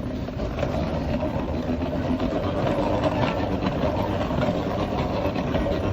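Steady engine and running noise of a vehicle, with a low hum that does not change.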